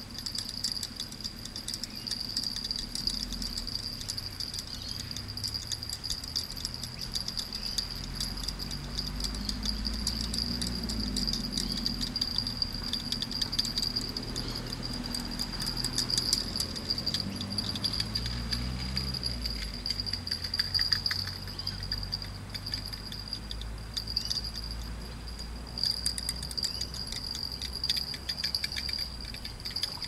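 Insects trilling in a steady, high-pitched chorus of rapid pulses, with a low rumble underneath.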